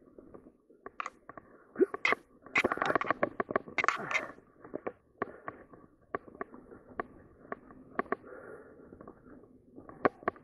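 Mountain bike rolling over a dry dirt trail: tyres crunching through leaf litter and over roots, with irregular sharp clacks and rattles from the bike over bumps, busiest between about two and four seconds in.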